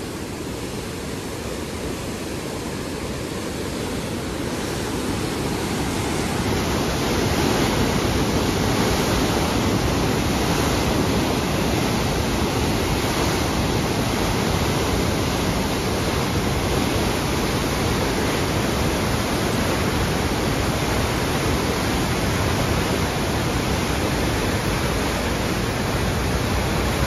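Heavy flow of river water pouring through an open check-dam gate, a steady rush of churning whitewater. It grows louder over the first several seconds, then holds steady.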